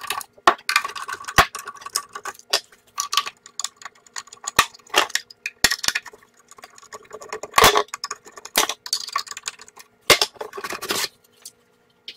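Sharp metallic clicks and clinks of screws being taken out with a screwdriver and set down, then louder clattering and scraping of sheet metal in the second half as the receiver's slotted steel top cover is lifted off.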